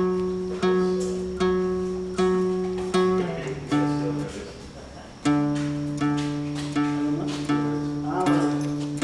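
Acoustic guitar strumming an instrumental intro, one chord struck about every three-quarters of a second, with a change of chord and a short dip in level a little past the middle.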